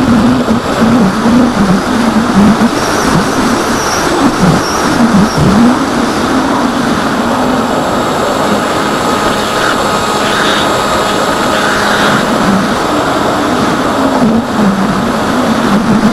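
Electric motor and propeller of an AXN RC foam plane heard from its onboard camera, under heavy wind rush. The motor's pitch wavers, dipping sharply a few times in the first half as the throttle changes, then holds steadier.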